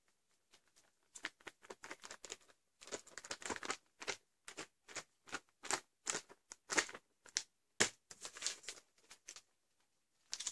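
Trek'n Eat meal pouch crinkling and rustling in quick, irregular bursts as it is handled and shaken, the sealed bag filled with water while the potato stew soaks.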